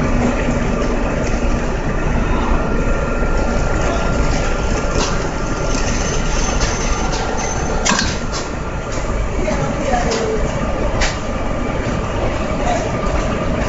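GK35-6A bag-closing sewing machine and its conveyor running steadily while stitching feed bags shut, with a few sharp clicks.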